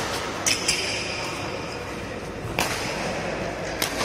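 Badminton rally: several sharp racket-on-shuttlecock hits spaced irregularly, a second or more apart, two of them close together about half a second in.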